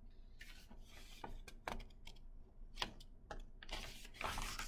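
Paper pages of a picture book being handled and turned: a few short rustles and taps, then a longer rustle near the end as a page is flipped over.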